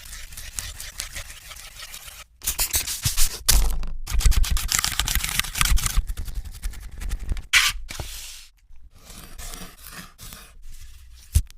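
Close-miked cooking sounds: scraping and runs of rapid clicks in a series of short clips, each starting and stopping abruptly.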